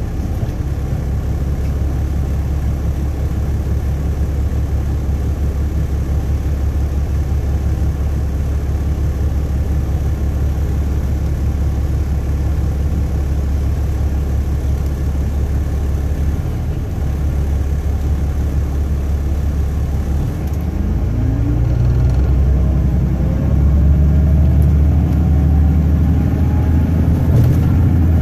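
2007 MCI D4500CL coach's diesel engine idling with a steady low drone, heard from inside the cabin. About three-quarters through, the coach pulls away and the engine note climbs as it accelerates.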